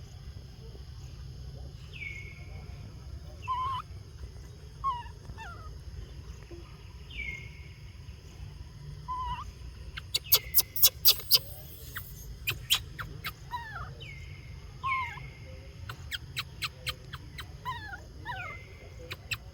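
Short animal calls, each falling in pitch, repeating every two to three seconds. A quick run of sharp clicks or taps comes about ten seconds in, and a sparser run follows later.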